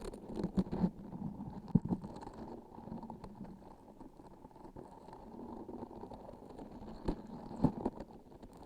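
Close-miked pressing and squeezing of a sticky transparent object: a continuous soft low texture broken by a few sharp sticky clicks, twice early on and twice near the end.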